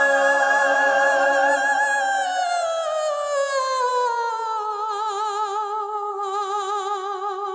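Unaccompanied female voice holding a wordless 'ooh' over lower sustained voices, which drop out about two seconds in. The lead voice then slides down and settles on a lower held note with a widening vibrato.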